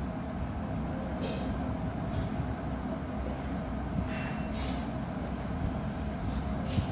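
Steady low mechanical rumble with a steady hum, and a few short soft hisses about a second, two seconds and four seconds in.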